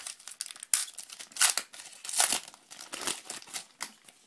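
Football trading cards and their packaging being handled: a run of quick, irregular rustling and crinkling swishes, several loud ones in the middle.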